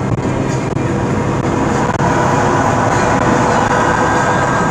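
Steady road and engine noise inside a vehicle cabin at highway speed.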